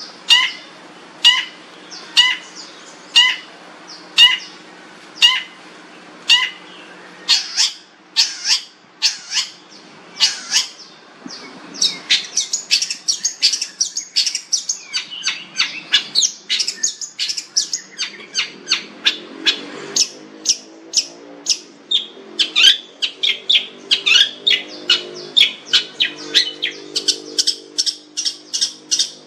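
Long-tailed shrike (cendet) calling: harsh calls about once a second for the first seven seconds, then a fast, dense run of chattering, squawking notes.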